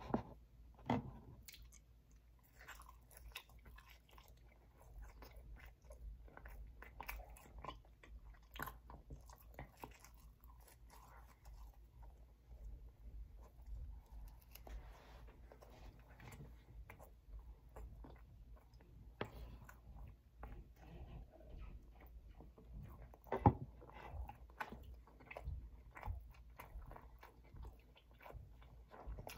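Close-up chewing and biting of pizza: irregular wet mouth sounds with small crunches of crust, plus a few sharper clicks, the loudest a little past the three-quarter mark.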